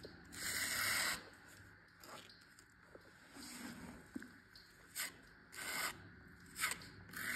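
Spatula scraping epoxy grout across floor tiles, gathering the excess and pressing it back into the joints, in several short strokes with pauses between.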